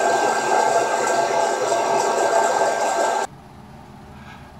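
Fresh Roast SR700 hot-air coffee roaster running, its fan blowing hot air through the beans in the chamber with a steady, pretty loud whooshing whir. It cuts off suddenly about three seconds in, leaving faint room tone.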